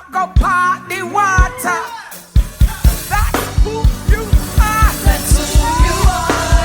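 Gospel band music with a singer's voice; about two and a half seconds in, a fast, steady drum beat starts, about four to five hits a second, under held chords.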